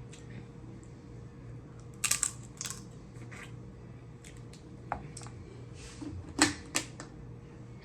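Eating sounds from a seafood boil: a handful of sharp cracks and clicks, about two seconds in, then scattered through the rest, the loudest about six and a half seconds in, over a faint steady hum.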